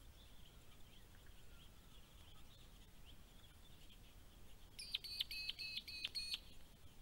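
A bird calls about five seconds in: a quick run of about eight high, sharp notes lasting a second and a half. Faint distant birdsong chatters throughout.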